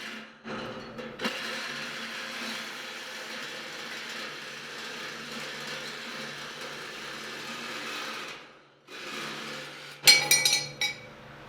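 A power tool runs steadily with a whirring sound, stopping briefly twice. Near the end come several sharp, ringing clanks of metal.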